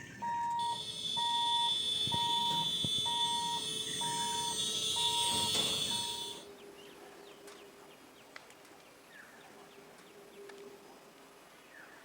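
Railway level-crossing warning alarm: a steady electronic beep repeating about one and a half times a second, joined by a shrill continuous ringing. Both cut off suddenly about six seconds in, leaving a quiet background with a faint hum and a few faint chirps.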